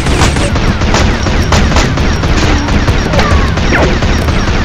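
Rapid gunfire sound effect: many shots overlapping densely in a continuous fusillade, with a few falling whistles among them.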